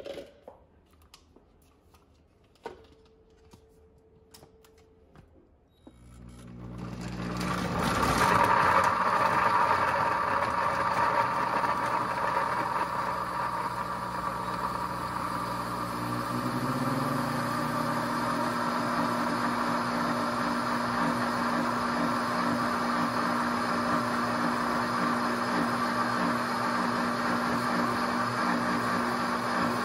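A few light clicks, then about six seconds in a countertop blender's motor starts and spins up, loudest as it first churns through ice, fruit and juice, then running steadily as the mix turns smooth, with a steady hum settling in about halfway.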